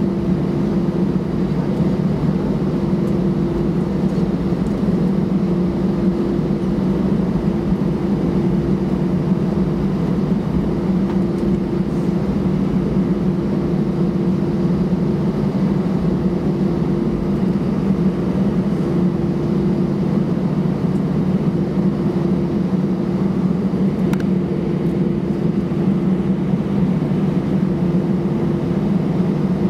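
Cabin noise of an Airbus A320-214 taxiing, its CFM56-5B engines at idle: a steady hum with a held low drone that wavers in strength.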